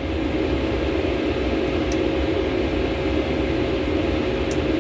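Steady drone of running workshop machinery, with two faint clicks as the buffer-wheel motor clamps on the edge bander are worked loose.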